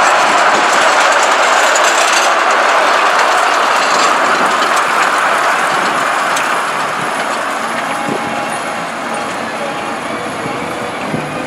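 A 15-inch gauge miniature steam train running past, its coaches rolling and clicking over the track while the steam locomotive's hiss fades as it draws away.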